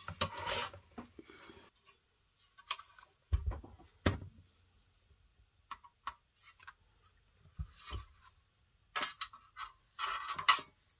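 Hands and a screwdriver working at a monitor's sheet-metal chassis and power supply board: scattered metal clicks and clinks, with a few dull knocks.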